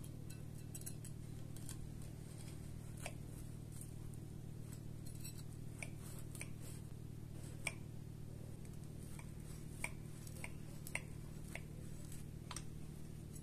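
Table knife cutting through a soft pan-fried cake on a plate, the blade giving short light clicks against the plate now and then, the sharpest about halfway through, over a steady low hum.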